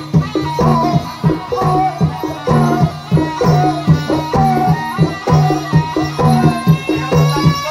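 Live Javanese gamelan music for a kuda lumping (jaranan) horse dance. Hand drums beat a fast, even rhythm over repeated low pitched notes, with a wavering melody line above.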